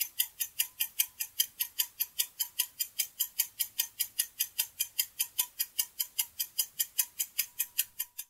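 Ticking-clock sound effect of a quiz countdown timer, an even run of sharp ticks at about five a second, marking the time left to answer.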